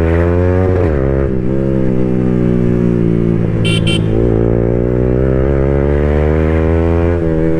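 Yamaha R15M's single-cylinder engine through a loud exhaust, pulling under throttle with its pitch climbing slowly; the pitch drops about a second in and again near the end as the throttle is eased or a gear is changed. Two short horn beeps sound a little after the middle.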